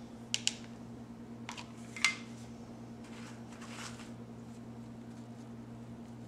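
Handling of hot-glue crafting materials: a few light clicks and taps, the sharpest about two seconds in, then a soft rustle of loose silk rose petals being picked from a foam tray, over a steady low hum.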